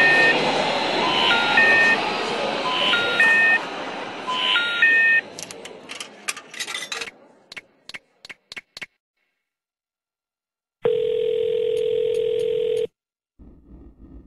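Noisy street ambience with voices and a repeating electronic beep tune, ending about five seconds in. Then a run of sharp clicks as the payphone's buttons are pressed to dial, a pause, and near the end a steady telephone tone for about two seconds: the call ringing on the line.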